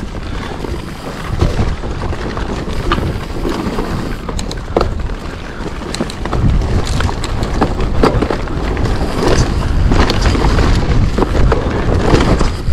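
Mountain bike riding fast down a rough dirt singletrack, heard from a handlebar-mounted camera: a steady low rumble of wind on the microphone and tyres on the ground, with frequent clicks and clatters as the bike rattles over bumps.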